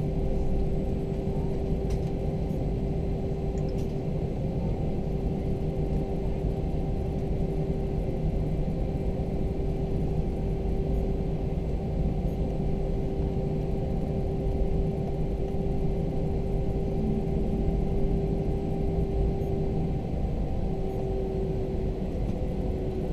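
Inside an Airbus A321's cabin while it taxis after landing: a steady low rumble of jet engines at idle and airframe noise, with a constant humming tone over it.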